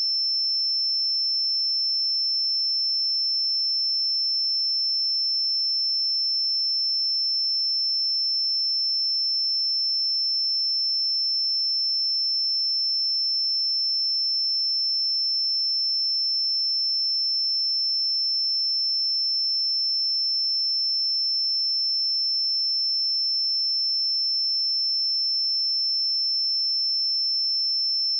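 Pure 5331 Hz sine-wave test tone, a single steady high-pitched tone held at a constant level.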